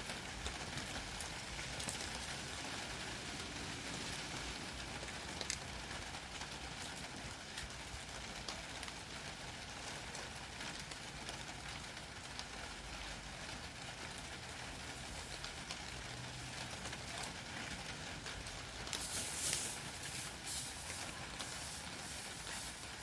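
Steady rain hiss with scattered faint ticks of drops. A short cluster of sharper clicks near the end.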